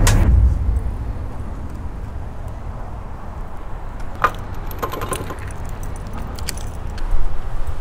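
Electric bike rolling slowly to a stop, with steady low wind and road rumble on the bike-mounted microphone and a few sharp metallic clicks and rattles from the bike being handled, the loudest about four seconds in.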